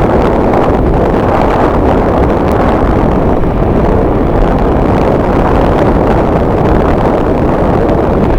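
Strong wind buffeting the camera microphone, a loud steady rushing noise.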